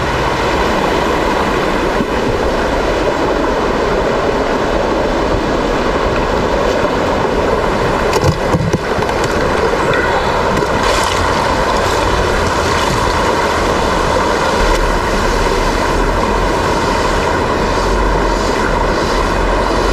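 Shallow stream water rushing steadily over rocks, close and loud. A couple of brief knocks come about eight seconds in.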